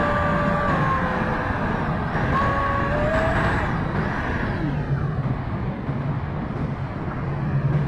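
Electric ducted fan of a radio-controlled F-16 model jet whining in flight, heard from a camera on the jet with heavy wind rush over the microphone. The whine steps down in pitch about a second in, comes back around two and a half seconds, rises briefly and fades out about four seconds in as the throttle changes, leaving a lower steady hum.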